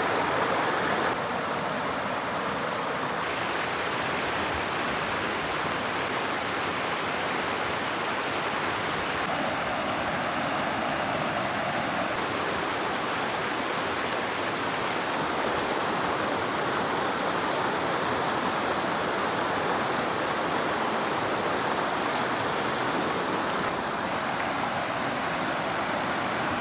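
Shallow river water rushing over rock ledges and boulders in small rapids, a steady, even rush of whitewater.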